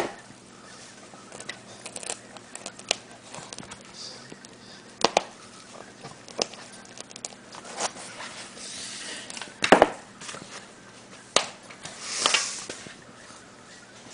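Small dogs playing on a tile floor: scattered clicks, taps and knocks of claws on the tiles and of chewing at a foam toy. The loudest knock comes about ten seconds in, and a short hissing rustle follows about two seconds later.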